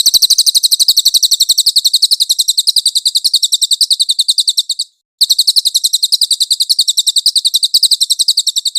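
Cililin bird song: a rapid, high trill of thin chirps at about a dozen a second, in two long runs broken by a short pause about five seconds in.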